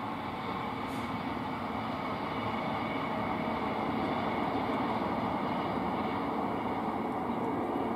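A regional passenger train passing on electrified main line track: a steady rolling rumble of wheels on rail that grows slightly louder midway and eases off near the end.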